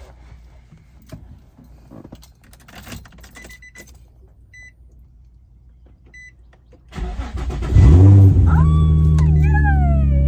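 Infiniti G35's 3.5-litre V6 cranking and starting after a week sitting, flaring up and settling to a steady idle. Before it, quiet small clicks and a few short high beeps; after the start, a high squeal that slides down in pitch.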